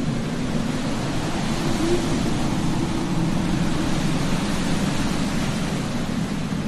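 Steady rushing noise of a night-time cemetery ambience, like wind, with one short owl hoot about two seconds in.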